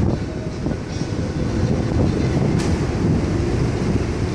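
Strong wind on a cruise ship's open deck, buffeting the microphone in a steady low rumble.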